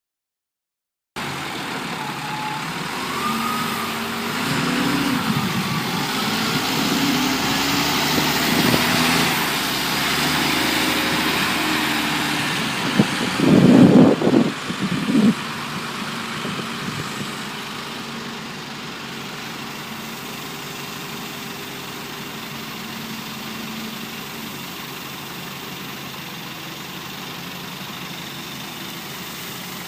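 Wheel loader diesel engine working, its pitch rising and falling as the machine moves. About halfway through comes a loud clatter of several heavy dumps, fitting gravel falling from the bucket into the truck bed. After that the engine settles to a steady, quieter idle.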